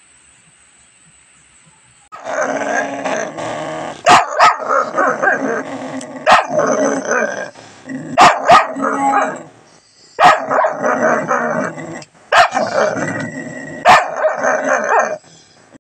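A dog growling and grumbling in long, loud bouts, broken by several sharp barks.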